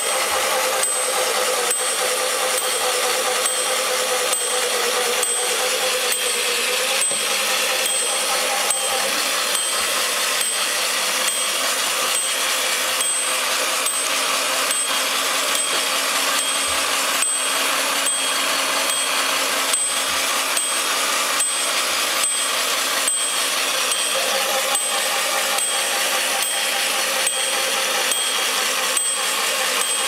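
Daewoo toy washing machine running its wash: the small motor hums as the pulsator churns the water, and the built-in bell rings over and over in a steady rhythm. The bell was meant to ring only when the wash stops, but it rings throughout operation.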